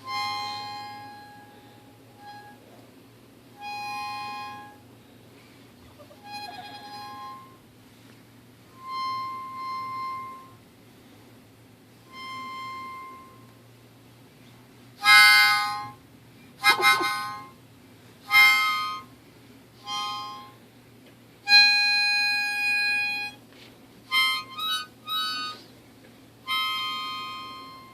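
Harmonica played in short held notes and chords, soft at first and then louder, with quicker phrases from about halfway.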